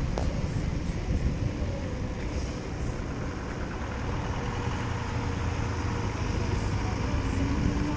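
Steady low rumble of road traffic with motor vehicles going by.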